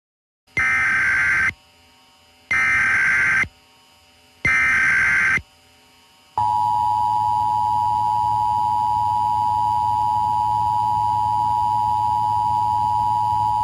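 Emergency Alert System test tones: three one-second bursts of SAME header data, then the steady two-tone EAS attention signal from about six seconds in, held for about seven seconds.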